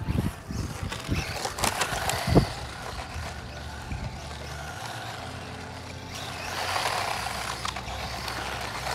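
Eachine EAT10 brushless RC truck driving on an asphalt street, its motor and tyres making a steady noise that swells near the end. A few sharp knocks come in the first couple of seconds.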